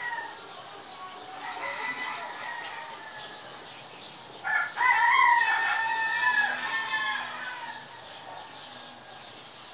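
A rooster crowing once, about halfway through: one long call that drops in pitch at the end. Fainter calls are heard before it.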